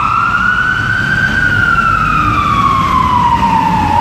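Ambulance siren in a slow wail. Its pitch rises until about a second in, falls slowly over the next three seconds, and starts to rise again at the end. Car engine and road rumble run underneath, heard from inside a following car.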